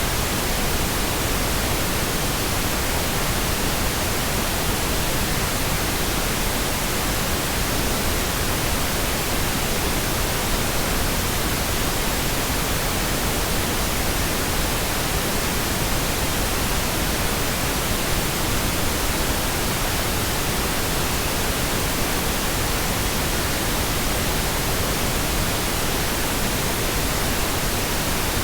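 Steady pink noise: an even, unchanging hiss across the whole range, with no breaks or events.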